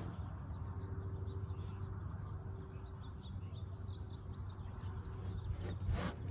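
Faint birds chirping in the background over a low, steady outdoor rumble, with a brief noise near the end.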